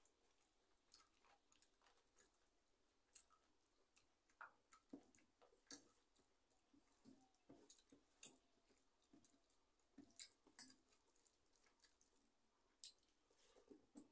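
Faint sounds of a person eating rice by hand from a steel plate: irregular soft clicks and smacks of chewing and of fingers mixing rice against the plate.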